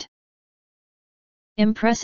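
Dead silence, then a synthesized text-to-speech narrating voice starts speaking about one and a half seconds in.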